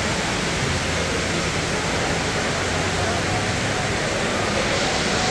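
Steady rushing of water falling down a tall indoor waterfall wall, with faint crowd chatter.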